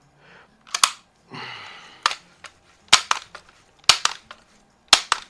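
Winchester 1977XS multi-pump air rifle being pumped to build air pressure: the forearm pump lever snaps shut about once a second, each stroke a sharp double clack.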